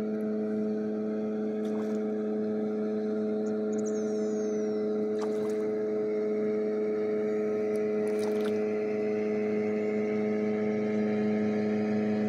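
A boat motor running at a steady, even hum, with a few faint ticks over it.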